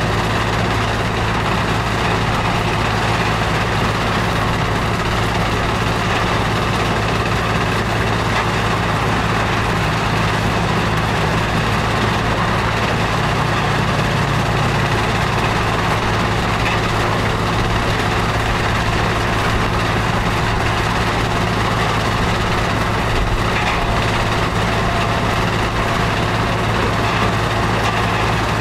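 Powerscreen Chieftain 1700 mobile screening plant running steadily under load: its engine, vibrating screen and conveyors carrying mined sand and rock make a constant, loud mechanical noise with a steady low hum.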